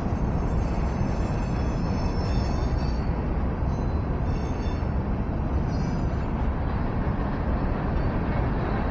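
Freight train rolling through a grade crossing: a steady rumble of wagons passing, with faint high tones coming and going above it.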